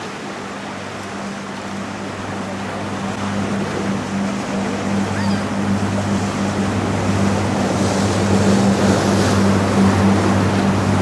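A passing general cargo ship's engine gives a low, steady hum, under rushing water from the wash along its hull and the wake waves. The rushing grows steadily louder as the ship goes by.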